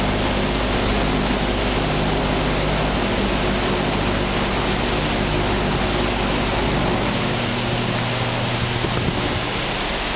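Modified air-cooled VW flat-four engine, built to about 211 hp, running steadily with a loud, hissing exhaust note; its pitch shifts about seven seconds in.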